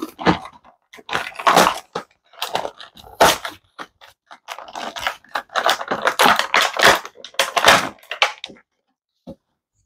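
Retro-style cardboard card and clear plastic blister packaging being torn and pried open by hand: irregular bursts of crinkling and crackling, the busiest stretch from about five to eight and a half seconds in.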